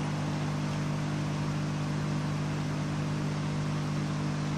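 Hot-air rework station handpiece running steadily, its fan humming with an even hiss of blown air, while solder under the SIM card connector is heated to melting.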